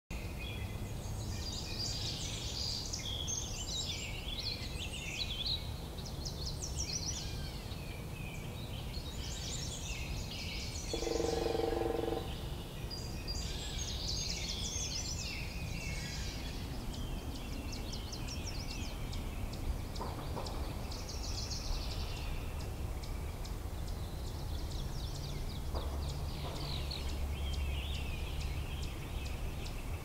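Several songbirds singing over a low steady rumble; about eleven seconds in, one deep call of about a second from an American bullfrog stands out as the loudest sound.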